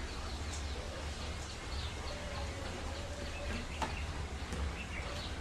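Quiet eating: luchi being torn by hand and chewed, over a steady low hum, with small birds chirping now and then in the background. One sharp click, like a finger or bread against a steel bowl, a little before four seconds in.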